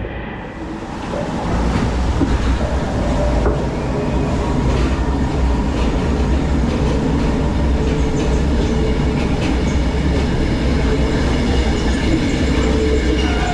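Log flume ride machinery rumbling and clattering steadily under the boat. A faint high squeal joins in over the second half.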